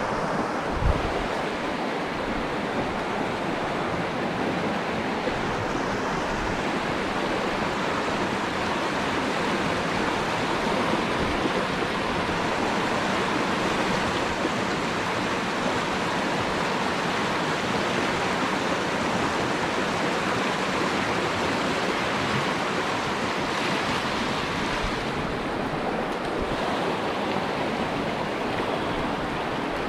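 Steady rushing of a river's flowing water, with a brief low bump about a second in.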